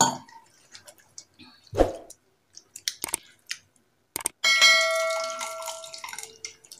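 A bell-like chime rings out about two-thirds of the way in and dies away over under two seconds. Before it come a few sharp knocks of a ladle and bowl against a steel pot.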